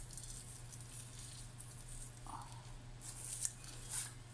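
Faint rustling of dried rosemary leaves being pinched from a jar and crumbled between the fingers onto a plate of vegetables, a few soft rustles with the clearest near the end, over a low steady hum.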